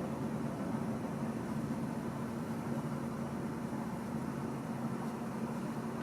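Car engine idling with a steady hum.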